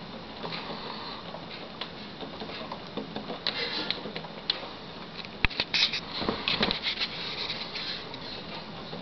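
Rain pattering steadily during a storm, with a run of sharper taps and knocks around the middle.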